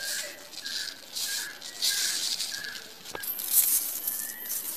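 Dry flakes of homemade fish food being crumbled and rubbed between several hands: crackly rustling that comes in irregular bursts, with one sharp click about three seconds in.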